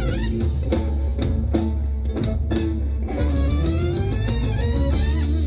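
Live band playing upbeat Latin dance music: electric bass, guitar and drum kit, with several sharp drum hits.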